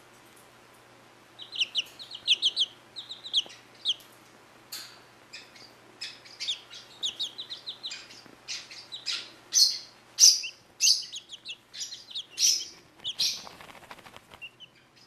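Young chicks peeping: short, high chirps in quick runs, starting about a second and a half in and getting busier and louder later on. Near the end a soft rustling joins in as a chick flops about on the towel to towel-bathe.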